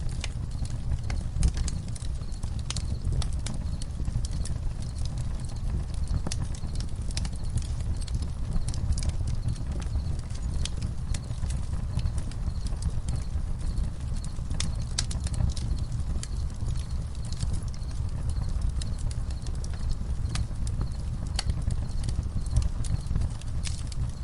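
Campfire crackling, with frequent irregular sharp pops and snaps over a steady low rumble, and crickets chirping faintly.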